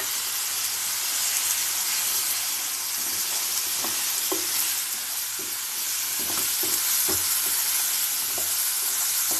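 Onion, tomato and ginger-garlic masala sizzling in hot oil in a non-stick frying pan, with fresh curry leaves and coriander just added. A wooden spatula stirs it, knocking and scraping against the pan several times from about three seconds in.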